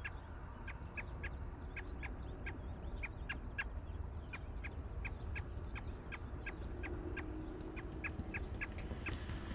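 A bird's short, sharp call notes, repeated about three times a second, over a steady low rumble.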